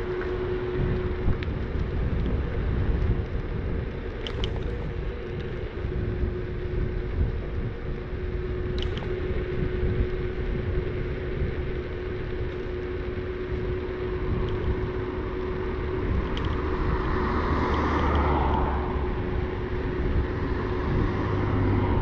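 Inokim Quick electric scooter riding on a paved path: a steady low rumble of the tyres on the pavement and wind on the handlebar-mounted action camera, with a steady hum throughout and a few sharp rattles from bumps. A broader swell of noise rises and fades about two-thirds of the way through.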